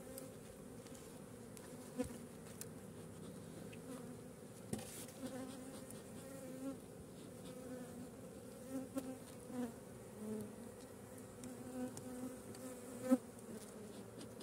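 Honeybees buzzing around an open hive: a steady hum whose pitch wavers. A few short clicks of a metal hive tool against the wooden frames, the sharpest about 13 seconds in.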